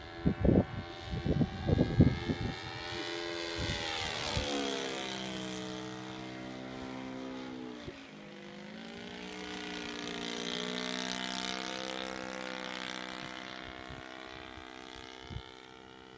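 Thunder Tiger 130 four-stroke engine of a radio-controlled Stuka model plane flying overhead. Its note drops in pitch as the plane passes about four seconds in, then grows louder again as it comes back around. Wind buffets the microphone in the first few seconds.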